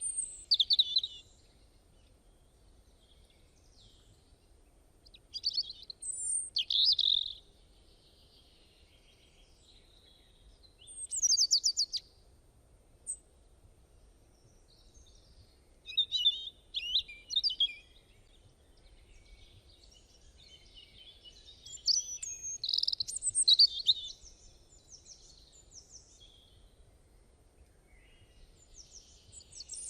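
Birds singing: short chirping phrases every few seconds, with quiet gaps between them.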